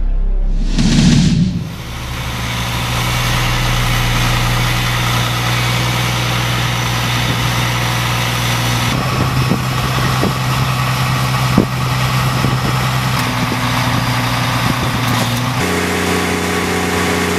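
A whoosh about a second in, then the diesel engine of a tracked drainage plow running steadily, its note shifting a few times, with a few knocks partway through.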